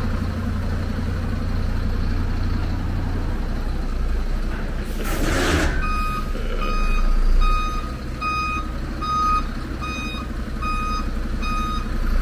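Dump truck's diesel engine running steadily, with a short hiss of air brakes releasing about five seconds in. Then a reversing alarm starts beeping a little over once a second as the truck backs up.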